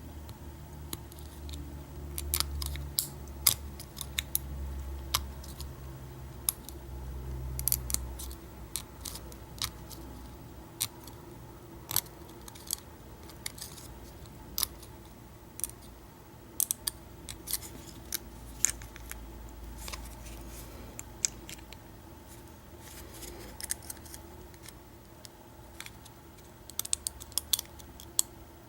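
Lock pick and tension wrench working the pin stack of a vintage American 700 padlock during single-pin picking: irregular small metallic clicks and ticks, with a quick run of clicks near the end. A low hum fades out after about eight seconds.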